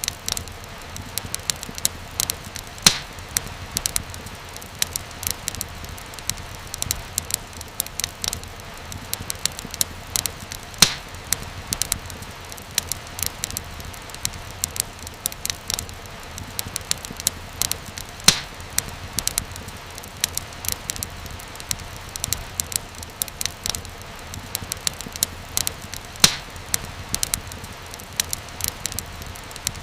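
Wood fire crackling steadily in a fireplace, dense small snaps with a louder pop every several seconds over a soft hiss.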